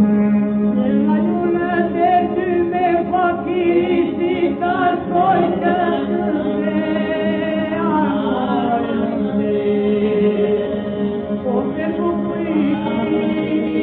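An Albanian vocal sextet singing a folk song in parts on a 1930 Victor 78 rpm record: one low note is held steadily underneath while the upper voices wind and bend above it. The old recording sounds thin, with no bright top end.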